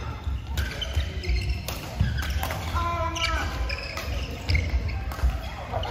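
Badminton rackets striking a shuttlecock in a doubles rally, a sharp pop every second or so, with court shoes squeaking on the floor mats between the shots.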